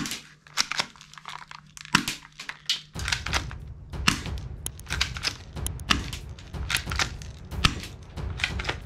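Plastic toy guns clicking, knocking and rattling against each other as they are handled and picked over in a box, with rustling. A low rumble joins about three seconds in.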